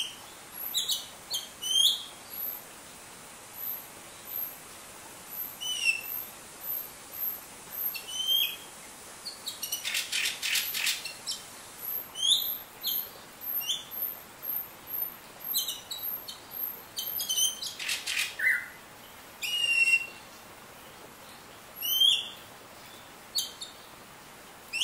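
Greater racket-tailed drongo calling over and over: a string of short, high chirps and whistles, many sliding down in pitch, with a quick run of rapid notes about ten seconds in and again near eighteen seconds.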